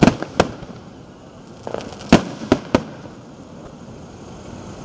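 Aerial fireworks shells bursting in the sky, a series of sharp bangs: two at the start, then three in quick succession about two seconds in, with fainter crackling between them.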